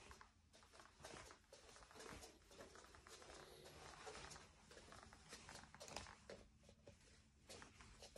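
Faint creaks and clicks from a wooden floor under slow bare footsteps, coming irregularly with each step.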